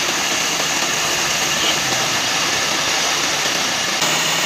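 Steady running noise of a woodworking machine's motor, even and unbroken.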